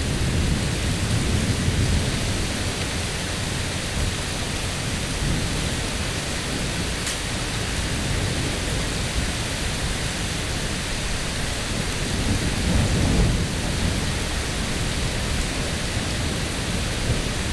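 Rain falling steadily through a thunderstorm, with low rolling rumbles of thunder that swell loudest about two-thirds of the way through.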